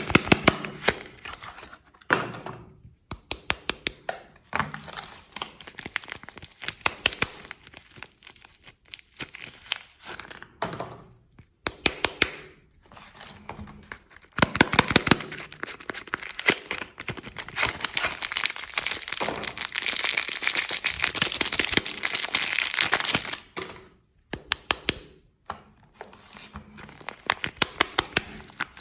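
Soap packaging being unwrapped by hand: wrappers crinkling and tearing, with many sharp clicks and taps. A long stretch of dense crinkling runs from about halfway until a few seconds before the end.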